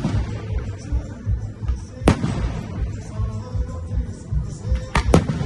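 Fireworks shells bursting with sharp bangs over music with a steady beat: one bang at the start, one about two seconds in, and two close together near the end.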